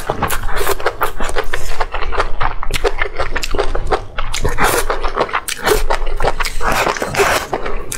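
Close-miked eating sounds: glass noodles being slurped and chewed, with a quick run of wet mouth clicks and smacks.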